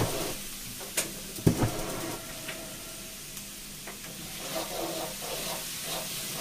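Minced garlic and ginger sizzling in oil in a wok while a metal ladle stirs and scrapes them, with two sharp clinks of the ladle on the wok about a second and a second and a half in. The aromatics are being fried to draw out their fragrance, on residual heat with the burner switched off so they don't burn.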